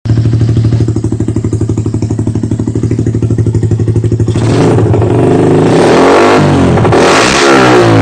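Motorcycle engine through an AHM aftermarket exhaust pipe, idling with a fast, even exhaust pulse. From about four seconds in, the throttle is blipped and the engine revs up and down several times.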